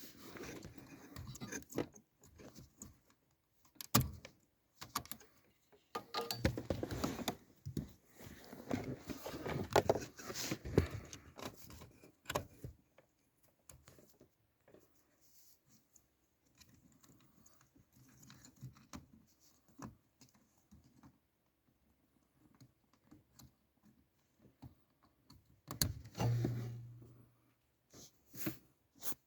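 Work sounds from hands and tools handling small parts: scattered clicks, rattles and rustling, busiest in the first half, with a short low hum about 26 seconds in.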